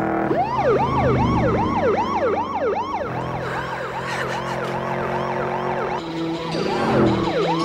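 Police car siren in a fast yelp, a rising-and-falling wail repeating about three times a second, over a steady low drone. It drops back a little after about three seconds and swells again near the end.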